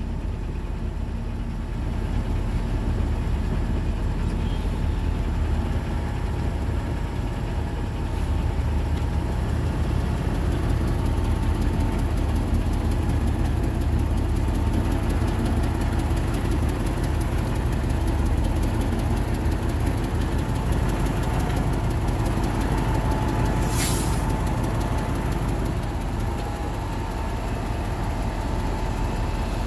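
Heavy diesel engines of a hydraulic excavator and a Hino dump truck running steadily while soil is loaded. About four-fifths of the way through there is one brief, sharp hiss of air from the truck's air brakes.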